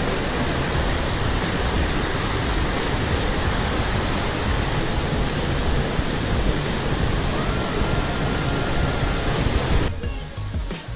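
Waterfall roaring in a steady, dense rush of falling water, cut off abruptly about ten seconds in.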